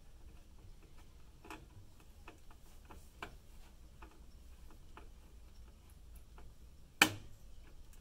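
Faint, irregular clicks and ticks of a screwdriver turning a motherboard screw into a case standoff whose threads the builder says are stripping, with one sharper click about seven seconds in.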